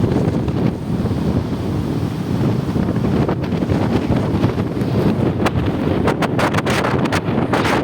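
Gale-force wind, about 25 m/s, buffeting the microphone: a dense low rumble throughout, with many short crackles in the second half.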